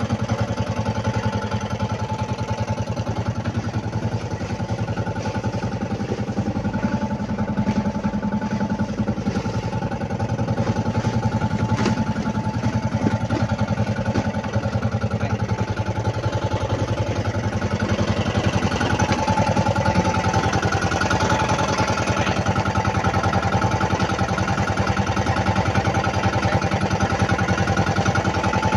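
A small outrigger fishing boat's engine running steadily, getting a little louder about two-thirds of the way through.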